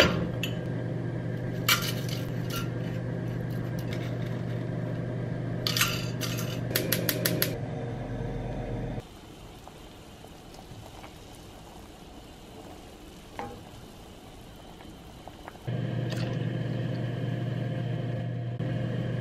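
Cooking sounds at a saucepan: sharp clicks and clinks of a lidded container and utensils against the pot, a quick run of them about six to seven seconds in, and a wooden spoon stirring. Under them is a steady low hum that drops away for several seconds in the middle.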